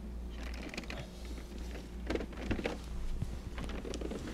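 A plastic Lexmark all-in-one printer being handled and turned around on a tablecloth: soft scraping and rustling with a few light knocks, busiest in the second half, over a steady low hum.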